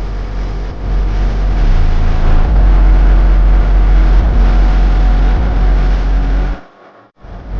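Bass-boosted music with a heavy, distorted sub-bass, cutting out sharply for about half a second near the end.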